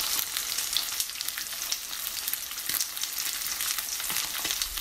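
T-bone steak sizzling in butter in a frying pan: a steady hiss with many small pops and crackles.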